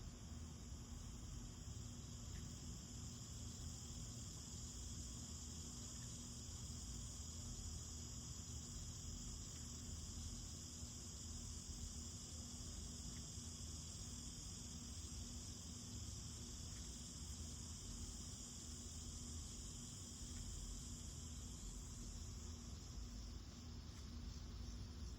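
Steady high-pitched chorus of insects, unbroken throughout, over a low background hum.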